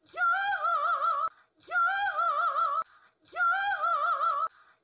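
A woman's high, wailing 'aah', a short note that rises and then wavers quickly, repeated three times exactly alike about every second and a half, as an edited loop.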